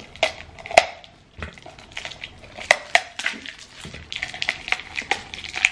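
Stainless steel drinking tumblers clinking against each other as they are handled out of their wrapping: about five sharp metallic clinks with a brief ring. Rustling of the wrapping comes in during the last second or two.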